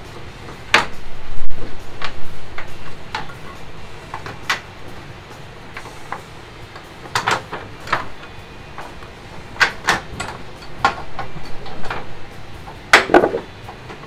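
Irregular clicks, taps and knocks of plastic and sheet metal as a front-loading washing machine's door assembly and door ring are handled and fitted against the front panel, with a few louder knocks about a second in and near the end.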